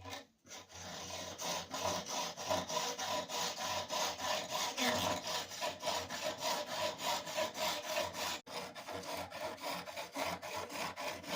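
A knife blade being sharpened on a guided sharpening jig: an abrasive stone stroked rapidly back and forth along the edge, about three to four scraping strokes a second, with a brief pause about eight seconds in.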